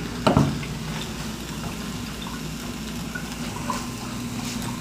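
Breakfast cooking on the stove: a steady low hum with faint bubbling and sizzling, after a short knock about a third of a second in.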